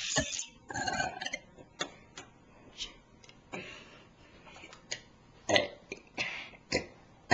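A person burping: a drawn-out burp about a second in, followed by scattered short clicks and knocks.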